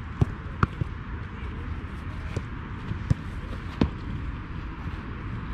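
Football being struck during goalkeeper training: four sharp thuds of the ball, two close together near the start and two more a little past halfway, as it is kicked and then met by the diving goalkeeper.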